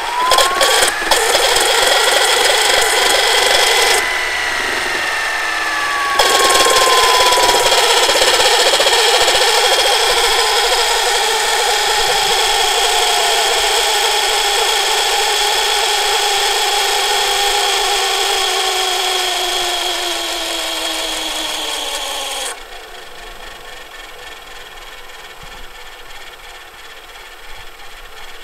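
Panasonic NV-HD635 VHS recorder's tape transport fast-winding the cassette: a few mechanism clicks, then a reel-motor whine with hiss that rises as it spins up and falls slowly as the tape winds across, until the transport stops abruptly about 22 seconds in.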